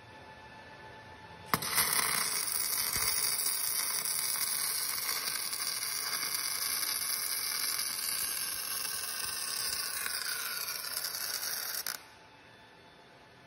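MIG welding arc on steel crackling and hissing steadily. It strikes up suddenly about a second and a half in, runs for about ten seconds and cuts off sharply near the end.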